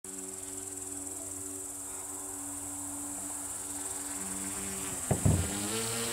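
Crickets trilling steadily and high, under the low hum of the RC airship's propeller motors, whose pitch steps up and down as the throttle changes. A brief loud noise about five seconds in.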